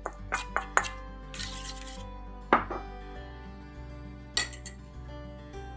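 A spoon clinking and scraping against a small glass bowl and a stainless steel mixing bowl while a herb marinade is scraped out. There is a quick run of taps in the first second, a louder knock about two and a half seconds in, and a ringing clink a little later, all over soft background music.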